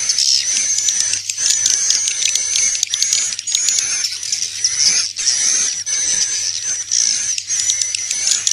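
Swiftlets' roosting calls: a dense, continuous chorus of many overlapping high twittering chirps. This is the 'inap' call played inside swiftlet houses to draw the birds in to roost.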